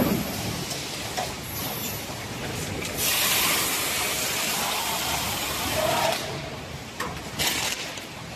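Case packing line machinery running: carton sealer and strapping machine. A loud hiss starts about three seconds in and lasts about three seconds, and a shorter hiss follows about a second later.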